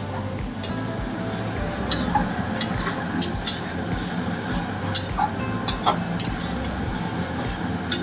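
Spatula clinking and scraping against a cooking pan while stirring sauce into fried onions and tomatoes, in irregular short strokes over a steady low hum.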